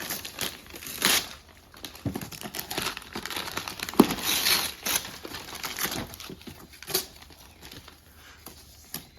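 Gift wrapping paper crinkling and tearing in irregular bursts, with a sharp knock about four seconds in.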